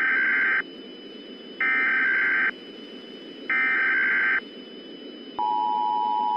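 Emergency Alert System header: three short bursts of buzzing SAME data tones about a second apart, then the steady two-tone EAS attention signal starting about five seconds in, over a low background hiss.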